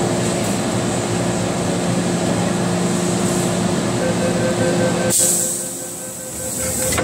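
Hong Kong MTR train carriage standing at a platform with its steady equipment hum. About four seconds in, the rapid door-closing warning beeps begin. A second later the sliding doors shut with a knock and a burst of hiss.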